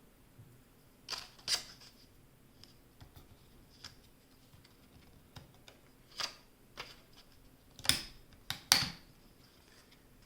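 Sharp, scattered clicks and snaps from laptop RAM modules being released from their spring retaining clips and handled in the memory slots, with the loudest pair near the end.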